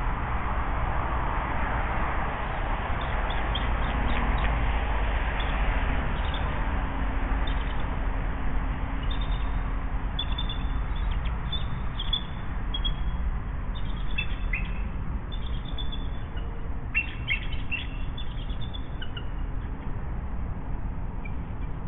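Short high bird calls in scattered bursts, coming more often in the second half, over a steady low rumble with a faint hum.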